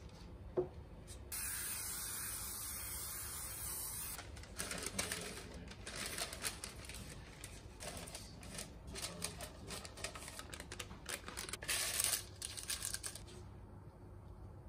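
Cooking-oil spray hissing steadily into a cake pan for about three seconds, then baking paper crackling and rustling as it is pressed into the pan's side and bottom, with a louder burst of crinkling near the end.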